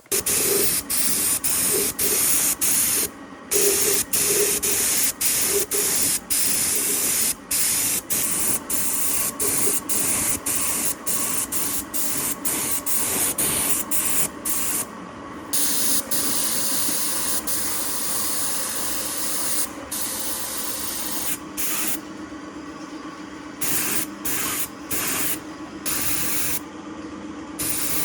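Air-powered spray gun hissing in many short bursts, each cut off by a brief pause as the trigger is released between passes.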